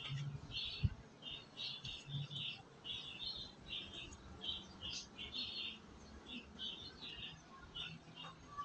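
Small birds chirping: a quick, steady run of short high chirps, several a second. There is a single low thump about a second in.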